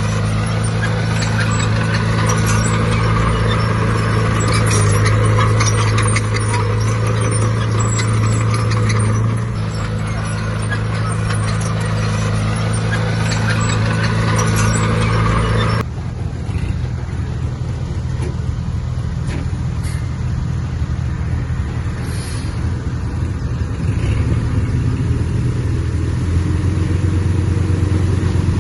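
Heavy diesel earthmoving machinery running: a steady engine with metal clatter, then, about halfway through, an abrupt change to another engine sound that grows a little louder near the end.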